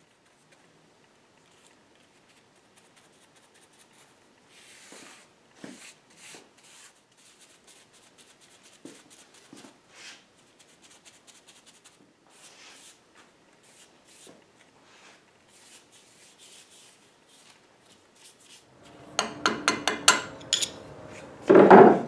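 Soft rubbing and rustling of paper towels and plastic sheeting as Evapo-Rust is dabbed onto a cast-iron lathe bed. Near the end, a quick run of sharp metallic clinks with a ringing tone, then one louder knock.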